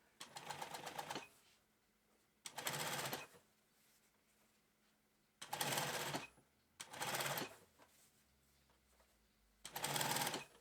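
Sewing machine stitching in five short runs of about a second each, stopping between runs.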